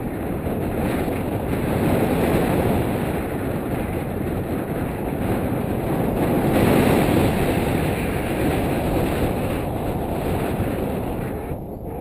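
Wind rushing over the microphone of a pole-mounted camera in paraglider flight: a steady low rumble that swells a little about two seconds in and again around seven seconds.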